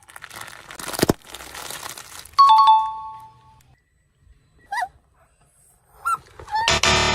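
Crackling crunch with a sharp crack about a second in, as of a brittle object crushed under a car tyre. Then a two-note ding-dong chime, a couple of short squeaky pitch slides, and a buzzy horn-like blast near the end.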